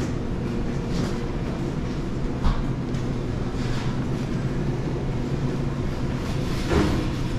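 Steady low rumble of grocery store ambience with a low hum, and two brief knocks, one about two and a half seconds in and one near the end.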